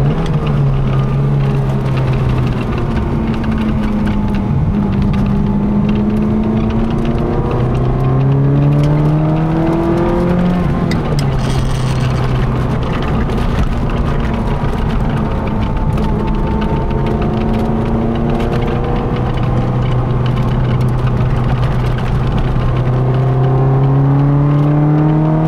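Ferrari F355's V8 engine heard from inside the cabin while lapping a circuit. Its pitch climbs under acceleration, drops sharply about eleven seconds in, and climbs again through the last few seconds.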